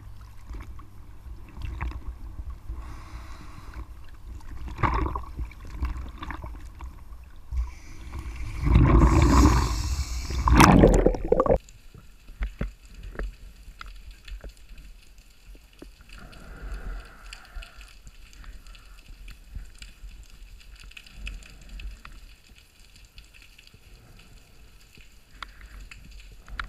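Sea water sloshing and splashing against a camera at the surface, with a loud rush of water about nine to eleven seconds in as the camera goes under. It cuts to a muffled underwater background with many faint clicks and crackles.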